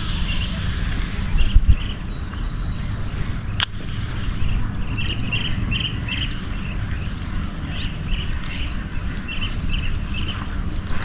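Outdoor ambience: a bird calling in groups of short, high chirps over a low steady rumble, with one sharp click about three and a half seconds in.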